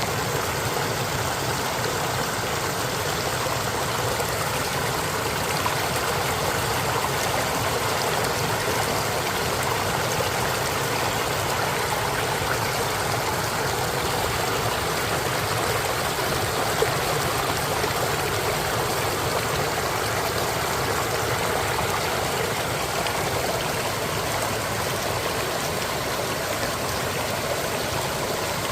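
Water flowing steadily, a continuous even rushing with no breaks.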